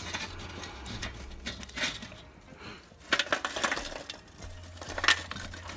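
Lumps of lit charcoal tumbling out of a chimney starter onto a bed of coals in a kettle barbecue: a run of clinking, crunching clatters, loudest about three seconds in and again about five seconds in.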